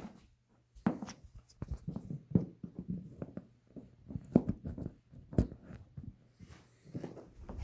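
Light clicks and knocks of handling, scattered irregularly, over a faint steady hum.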